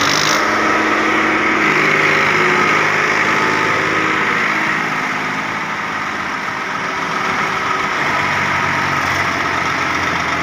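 Swaraj 855 tractor's three-cylinder diesel engine running steadily under load as it pulls a loaded trolley. Its level dips slightly around the middle, then picks up again.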